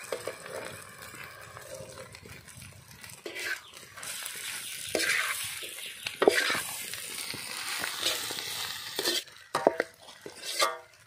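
Metal ladle stirring and scraping potato masala around a kadai over a low sizzle of frying, with a few sharp knocks of the ladle against the pan.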